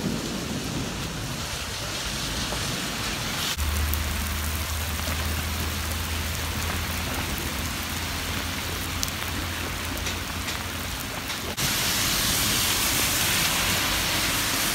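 Heavy rain pouring down onto the sea and a paved seafront in a violent storm: a steady, even hiss of downpour. It changes abruptly twice, about three and a half seconds in and again near twelve seconds, where it turns louder and hissier. A low steady rumble sits under it for several seconds after the first change.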